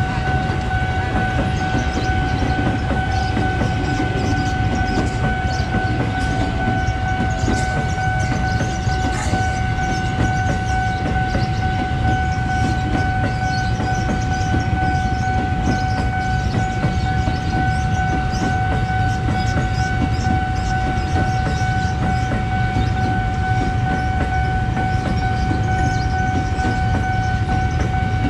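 KRL commuter electric train rolling through a level crossing at close range: a continuous low rumble, with wheels clacking over the rail joints. A steady high tone sounds throughout.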